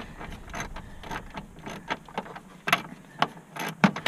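Hand tools and plastic dash trim clicking and knocking as an F-150's instrument cluster is worked on. About half a dozen sharp clicks come at irregular intervals.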